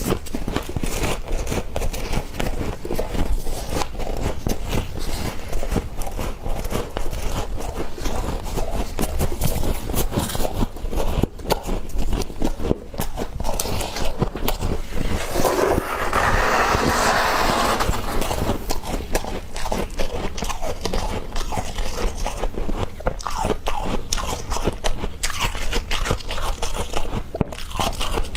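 Mouthfuls of freezer frost being bitten and chewed: dense, crisp crunching all the way through. About halfway through comes a couple of seconds of louder rushing, scraping noise.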